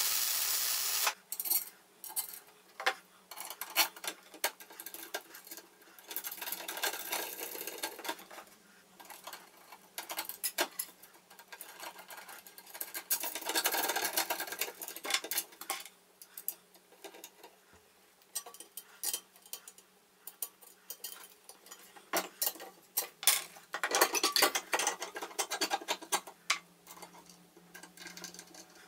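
A welding arc crackles for about the first second, then stops suddenly. After that, steel parts clink, scrape and click irregularly as a small gearbox is fitted to a steel bracket and worked on with a hand tool.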